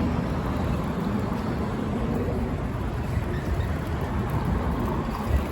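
Steady outdoor street noise with a low rumble.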